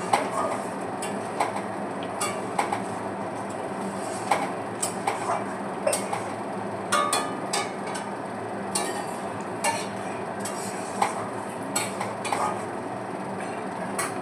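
Dishes clinking and scraping in irregular sharp knocks, typical of cats eating from bowls or food being served, over a steady background noise.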